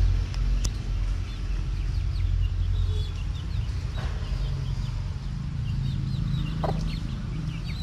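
Hen clucking while her chick peeps in short, high chirps, over a steady low rumble. A few sharp clicks, about half a second, four seconds and six and a half seconds in.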